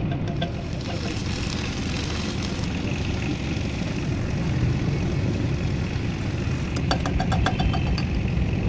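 A machine running with a steady low drone, with a cluster of light ticks about seven seconds in.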